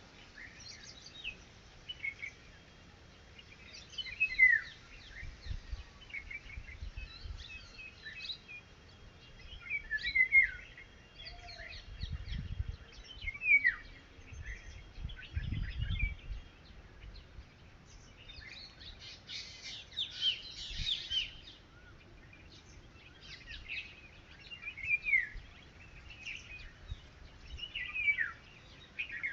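Red-wattled lapwing calling: short, sharp notes that sweep downward, repeated at irregular intervals with a dense flurry about two-thirds of the way through. Low rumbles of wind on the microphone come and go.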